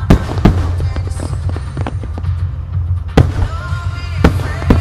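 Aerial firework shells bursting with sharp bangs: two near the start, one a little past three seconds in, and two near the end. Music with a heavy steady bass plays under them.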